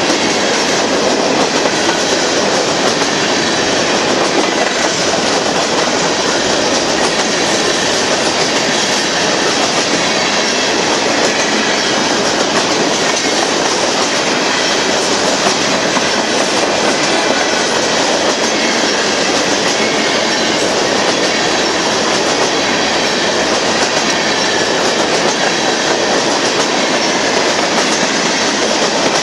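Union Pacific freight train of hopper cars rolling past, a steady loud rumble and rush of steel wheels on the rails.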